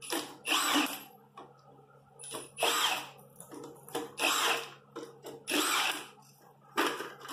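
Cordless impact wrench on the truck's wheel lug nuts, loosening them for wheel removal: about five short bursts of hammering, each about half a second, with pauses between as it moves from nut to nut. A steady low hum runs underneath.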